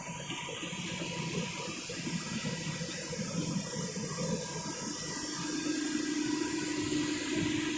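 Slant-bed CNC lathe running with coolant flooding and splashing over the work, a steady rush of liquid. A steady machine hum joins in about five seconds in.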